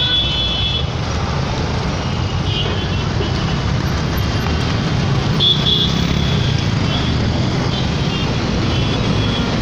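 Busy city traffic: a steady low rumble of bus and car engines close by, with short high-pitched horn toots sounding several times.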